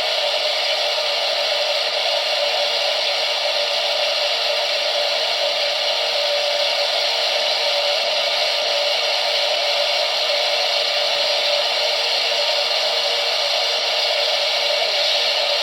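Small electric hot-air popcorn maker running, its fan blowing with a steady whoosh and an even motor hum.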